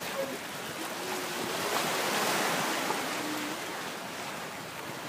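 Steady rushing noise like surf or moving water, swelling a little toward the middle and easing off, with a few faint low tones underneath.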